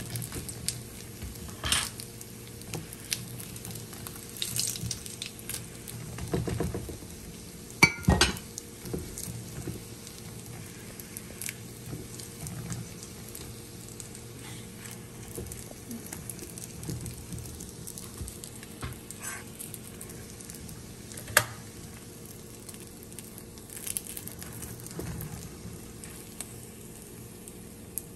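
Potato-filled pastries shallow-frying in oil in a small nonstick pan, a steady sizzle. A fork and spatula clink and scrape against the pan now and then as the pieces are turned, the sharpest clinks about eight seconds in and about twenty-one seconds in.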